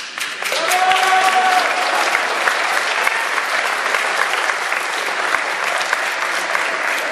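Crowd applauding, starting suddenly and keeping up steadily, with one short held high-pitched call about a second in.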